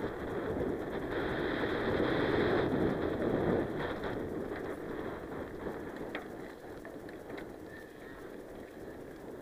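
Mountain bike ridden over a dirt and gravel trail: wind rushing over the microphone and tyres crunching, loudest in the first few seconds. It then goes quieter, with a few sharp clicks and rattles, as the bike climbs.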